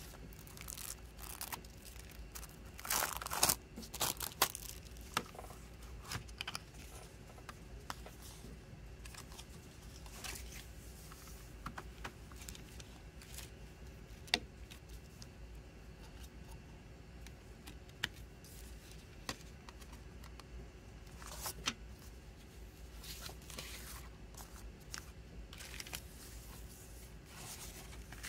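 Plastic shrink-wrap tearing and crinkling as it is peeled off a CD jewel case, loudest a few seconds in. Then scattered sharp clicks and rustles as the plastic case is opened, the disc is handled and the paper booklet is unfolded.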